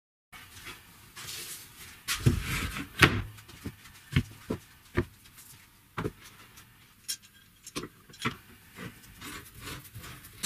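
Irregular knocks, clicks and clatter of hard objects being handled on a workbench. The loudest is a sharp knock about three seconds in.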